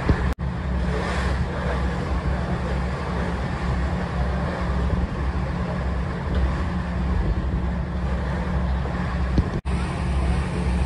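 A cruise boat's engine drones steadily under a rush of wind and water noise as the boat moves across the lake. The sound cuts out for an instant twice, about half a second in and near the end.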